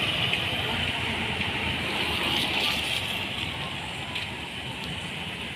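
Steady hiss of traffic on a wet road, with auto-rickshaws driving off, slowly getting quieter.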